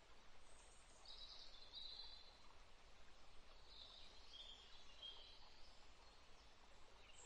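Near silence: faint background hiss with a few faint high chirps, at about one second in and again around four to five seconds in.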